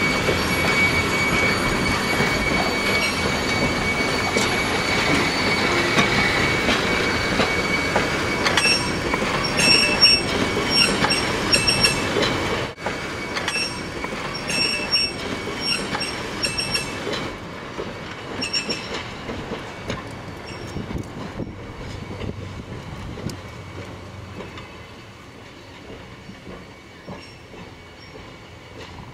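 Train of steel passenger cars rolling slowly past, wheels squealing steadily on the rails with clatter and short squeaks from the running gear. The sound fades away over the last third as the train moves off.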